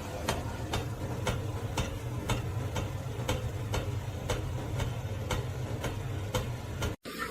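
Regular sharp clicks, about two a second, like a ticking clock, over a low steady hum.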